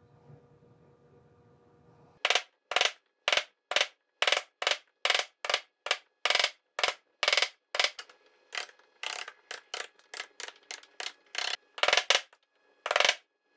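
Chisel struck repeatedly with a steel-headed hammer, chopping out the waste of half-blind dovetail sockets. After about two seconds of quiet, heavy blows come about two a second, then quicker, lighter taps from about eight seconds in, and a last blow near the end.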